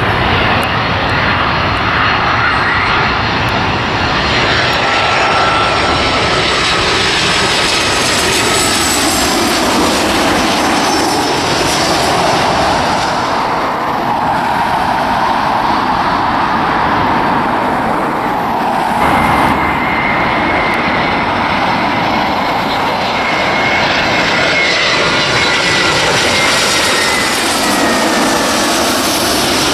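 Twin-engine jet airliners on final approach passing low overhead: a continuous loud turbofan engine noise with high whining tones that slowly glide in pitch. The sound changes abruptly about two-thirds of the way through, where a second aircraft, an Airbus A320, takes over with a steady high whine.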